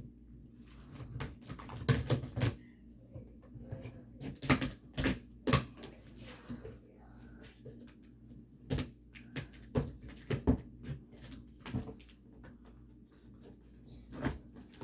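Cardboard box being cut and pried open by hand and with scissors: irregular sharp clicks, knocks and scrapes of cardboard and tape, some louder than others.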